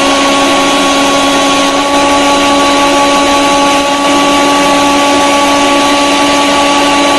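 Electric mixer grinder (mixie) blending chopped plums into purée: a loud, steady motor whine over a rushing noise, holding one pitch throughout.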